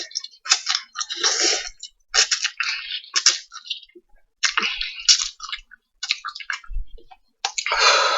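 Someone eating spicy instant ramen: a run of short, hissy slurps and breaths with pauses between them.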